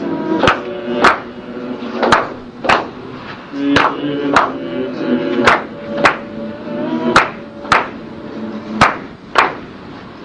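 Music with a steady beat of sharp percussive strikes, roughly two a second, over held pitched notes.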